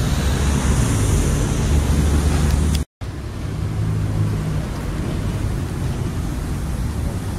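Street ambience of passing road traffic, a steady rumble and hiss, cut by a brief dropout to silence about three seconds in; after it the background noise goes on with less rumble.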